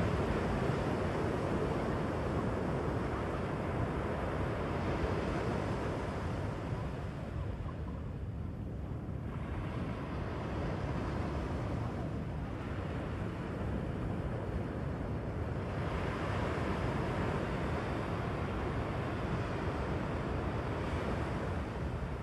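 Ocean surf breaking and washing up the sand. It swells and eases over several seconds, dropping off about a third of the way in before building again.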